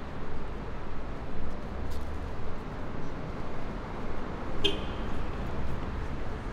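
City street traffic: a steady low rumble and hiss of passing vehicles, with a brief high squeak about four and a half seconds in.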